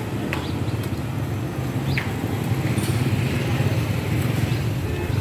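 Street traffic: motorbike engines running with a steady low hum under a wash of road noise, and two brief high chirps about half a second and two seconds in.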